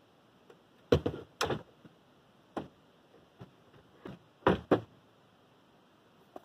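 Hollow wooden knocks and bumps of a plywood table section and its hinged legs being fitted onto a plywood bed frame: a loud pair about a second in, single knocks at about two and a half and four seconds, and the loudest pair at about four and a half seconds.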